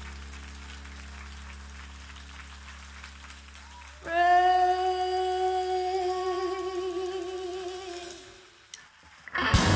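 Soft held low chords from a live band, then a woman's voice sings one long note with vibrato that swells and fades out. After a brief pause, the full band comes back in loudly just before the end.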